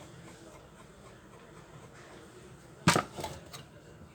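Handling of the spice grinder as it is taken apart: one sharp clack about three seconds in, then two lighter clicks just after.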